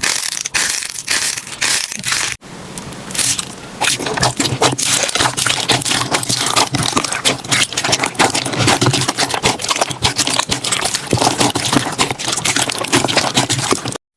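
Slime being squeezed and pressed, with dense crackling and crunching clicks throughout. The sound breaks off briefly about two and a half seconds in, then carries on the same way.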